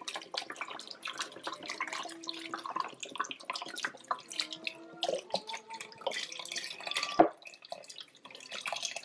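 Beef broth pouring from a carton into a stainless steel Instant Pot inner pot, splashing onto chunks of beef, potatoes and carrots, with a continuous patter of drips and short gurgles.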